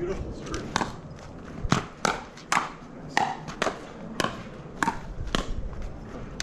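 Pickleball rally: about a dozen sharp, hollow pops, roughly every half second, as paddles strike the plastic ball and it bounces on the court.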